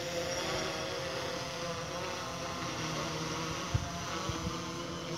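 Quadcopter drone's propellers humming steadily in flight, a buzzing drone of several held tones. A short click about three and a half seconds in, and a smaller one shortly after.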